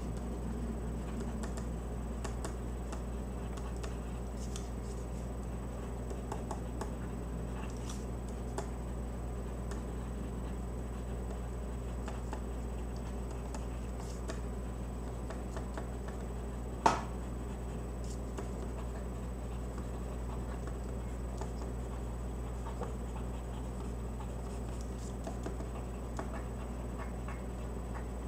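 Faint scratching of a pen writing on paper over a steady low hum, with scattered light ticks and one sharp click a little past halfway.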